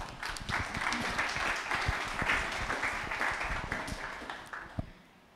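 Audience applauding in a hall, the clapping thinning out and stopping shortly before the end.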